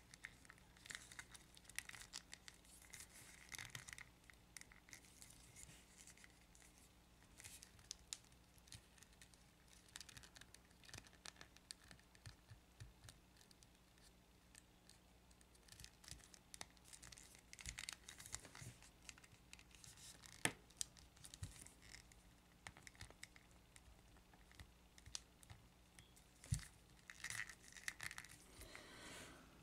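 Faint, scattered clicks and rustles of a bootleg Ninja Turtles action figure's plastic joints being worked by hand, with near-silent gaps between.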